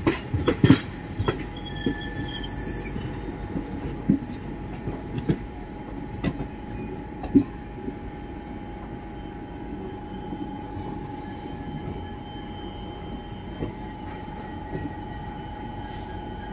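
Train wheels on the track, heard from aboard a moving train: sharp knocks over points and rail joints with brief high wheel squeals in the first few seconds as it changes track, then a steadier, quieter rumble with a constant hum.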